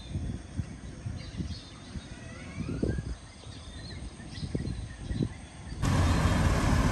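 Birds chirping in short calls over an uneven low rumble. About six seconds in, the sound cuts abruptly to louder steady street traffic of motorbikes and cars.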